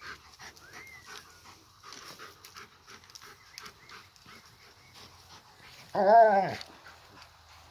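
Large dog panting as it noses a bowling ball about on grass. About six seconds in comes a single loud, drawn-out pitched call lasting about half a second.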